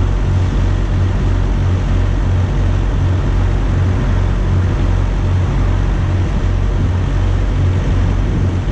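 Wind buffeting the microphone in an uneven low rumble, over a steady hiss of road traffic.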